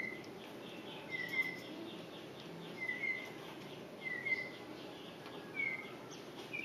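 A bird calling over and over: a short two-note chirp repeated about every second and a half.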